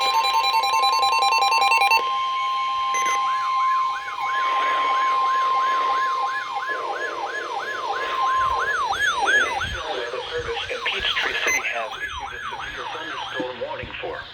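Emergency alert tones. A rapidly alternating two-tone alarm beep runs for about two seconds alongside a steady single alert tone that holds until about nine seconds in. From about three seconds in, an electronic siren wails up and down two to three times a second, fading somewhat toward the end.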